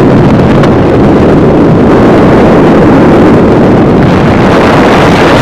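Wind rushing over the microphone of a vehicle moving at road speed, with road noise beneath: a loud, steady roar without a break.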